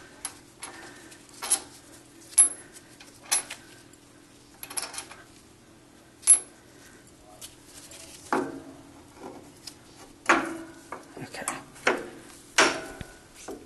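Steel hand tools clicking and clinking on a metal lathe carriage as bolts are worked with a T-handle hex key: a dozen or so sharp, irregular clicks over a faint steady hum.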